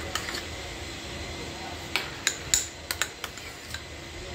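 A utensil stirring thick red-tinted icing in a bowl, clinking and tapping against the bowl's side with a few sharp clicks, most of them about halfway through.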